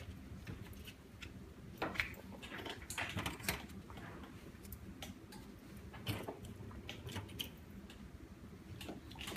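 Scattered light clicks, taps and small knocks of hands handling tools and the LCD on a workbench while the leftover glue is cleaned off, over a faint steady low hum.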